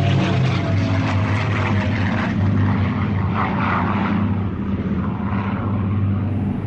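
Propeller-driven WWII-era aircraft engines droning steadily. A falling siren tone fades out at the very start.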